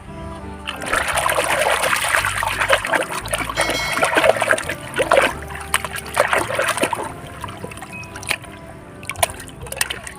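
Water splashing and running over muddy toy vehicles as they are washed. A steady gush lasts from just after the start to about two-thirds of the way through, then gives way to scattered drips and splashes.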